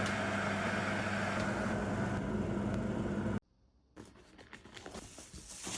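Steady running of a motor or machine with a low hum, cutting off abruptly about three and a half seconds in, followed by scattered clicks and handling noise.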